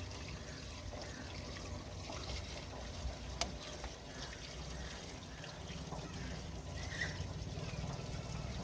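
Liquid being poured in a thin trickle, with a low steady hum underneath and one sharp click about three and a half seconds in.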